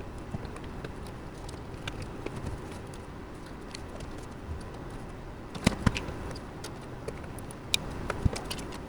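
Light clicks and taps of computer parts and a case being handled during assembly, with a couple of sharper knocks about six and eight seconds in, over a steady low background noise.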